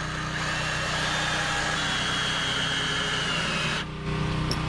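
Power drill driving a screw to fasten a 2x4 in place: a steady motor whine for about three seconds that cuts off sharply near the end, over a steady low hum.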